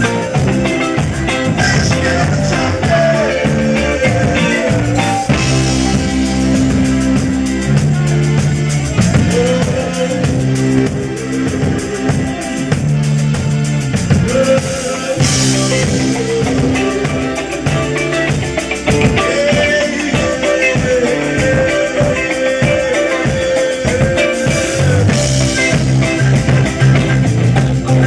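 Live rock band playing, with drum kit and guitar.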